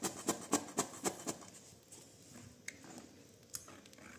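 Light, quick taps about four a second for the first second or so, then a few scattered clicks: kitchen utensil and container handling at the cooking pot while the cream is being added.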